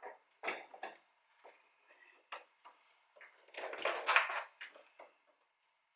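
Short plastic clicks and handling noises as an LED bulb is pushed into a turn-signal socket and the socket fitted back into the lamp housing, with a longer burst of scraping and clicking about midway through.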